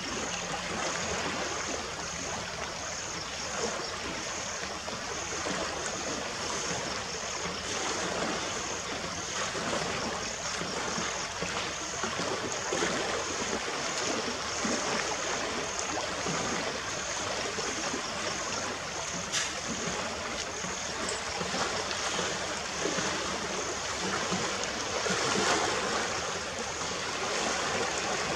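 The Rapti river flowing past the bank with a steady rushing sound. A faint, high chirping repeats about twice a second throughout.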